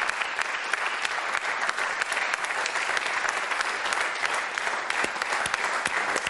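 Studio audience applauding: many hands clapping steadily.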